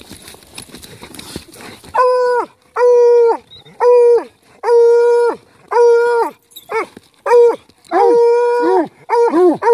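Hound baying at a fox hole: a run of about ten long, loud bawls, each holding a steady pitch and then dropping off, getting shorter and quicker near the end. The first two seconds hold only faint scratching at the dirt before the baying starts.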